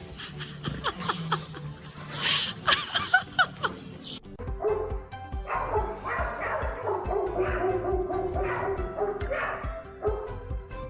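A dog yipping and barking in short, sharp calls during the first few seconds, then background music with a steady beat from about halfway in.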